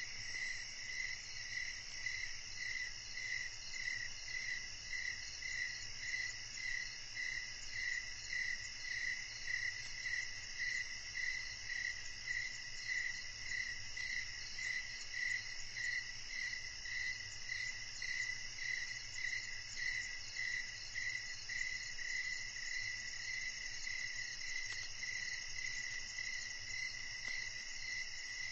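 Night chorus of crickets: a steady high-pitched trill over a lower chirp pulsing evenly about twice a second, several insects calling at once.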